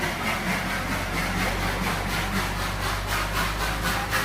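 Darjeeling Himalayan Railway toy-train locomotive working, a rapid rhythmic rasping beat of about five strokes a second over a steady low hum, growing stronger near the end.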